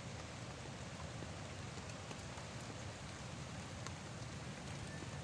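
Heavy rain falling steadily, with the odd sharper drop ticking close by.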